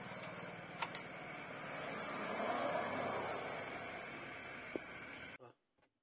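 Night insects trilling: a high, evenly pulsing buzz over a steady hiss, cutting off suddenly a little after five seconds in.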